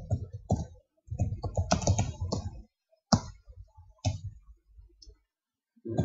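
Typing on a computer keyboard: a quick run of keystrokes in the first few seconds, then a few single strokes with pauses between them.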